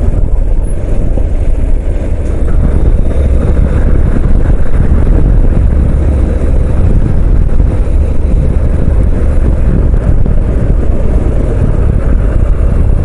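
Steady riding noise from a Honda NC750X motorcycle under way on a city road: wind buffeting the microphone mixed with the hum of the parallel-twin engine and tyres.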